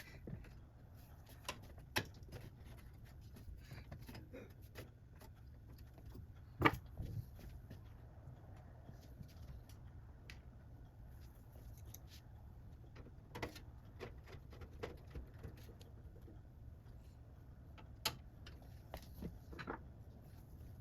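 Scattered clicks and knocks of computer hardware being handled and fitted during assembly of a desktop PC, over a low steady hum, with the loudest knock about seven seconds in.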